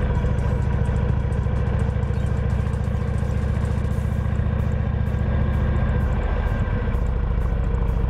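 Motorcycle engine running steadily at cruising speed, with wind and road noise. Its note wavers briefly about six and a half seconds in.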